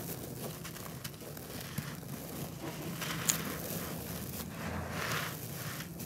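Dry, grainy red dirt crumbled by hand: clods break apart and gritty soil trickles and crackles through the fingers in repeated swells, with one sharp snap a little past halfway. A faint low hum runs underneath.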